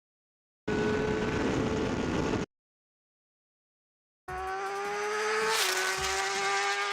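A sportbike running at steady high revs through an Akrapovic-replica slip-on exhaust, heard in a clip that starts about a second in and cuts off abruptly after about two seconds. After a gap of silence, music with a heavy, regular beat and a rising whoosh begins.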